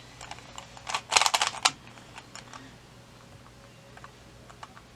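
A quick burst of dense, rapid clicking and clacking about a second in, followed by a few faint scattered clicks: small hard objects being handled.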